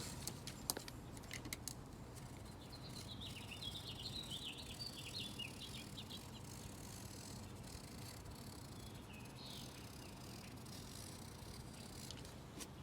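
A small bird twittering: a quick run of short high chirps a few seconds in and one more chirp later, faint over a low steady hum, with a few light clicks near the start and near the end.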